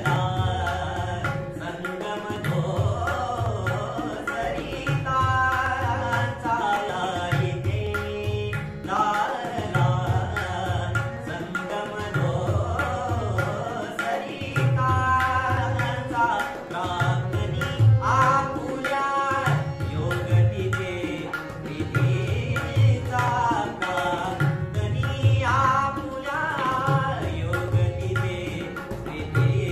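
A male voice sings a Marathi song, with tabla and harmonium accompaniment. The tabla keeps up a steady rhythmic pattern throughout, while the sung phrases come and go every few seconds over it.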